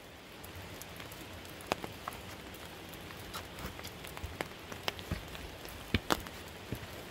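Steady rain falling on an umbrella, with irregular sharp ticks of single drops, the loudest a little before the end.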